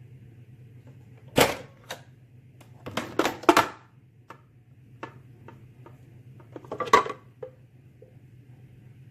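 Hard objects clacking and clattering as they are handled, in a few separate bursts (one about a second and a half in, a quick cluster around three seconds, another near seven seconds), with lighter ticks between and a steady low hum underneath.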